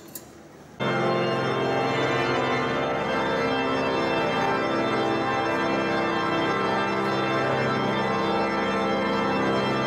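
Cathedral pipe organ coming in suddenly about a second in and playing loud, sustained full chords.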